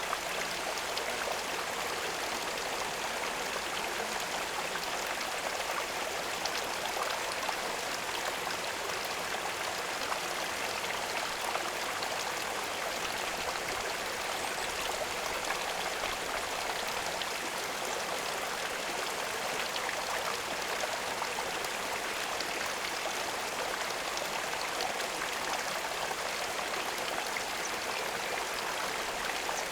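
Running water at the pond, flowing steadily with fine splashing and trickling, an even rushing with no pauses.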